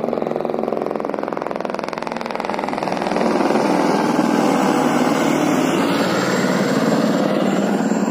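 Helicopter in flight, its rotor and engine running steadily; the sound grows louder about three seconds in.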